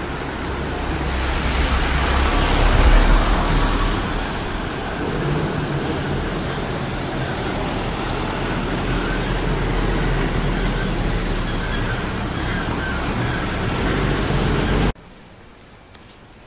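Road traffic on a city street: vehicles running by, with a low rumble and the loudest pass swelling about three seconds in. The traffic sound cuts off suddenly near the end.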